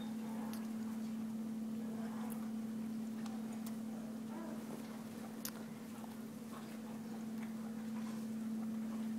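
Room tone during a pause: a steady low hum with a few faint clicks scattered through it.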